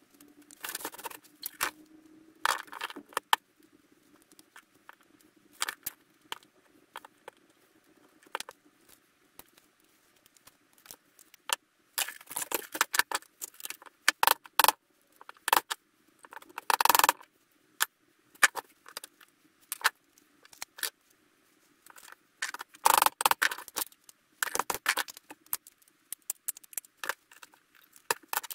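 Hand tools and small metal parts of a dismantled VHS player clinking and clicking on a workbench, in irregular clusters of sharp clicks and clatter with short quiet gaps between.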